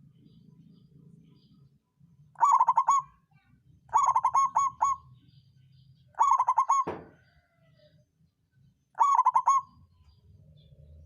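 Zebra dove (perkutut) cooing four times, each phrase a quick run of notes, with a short knock during the third phrase.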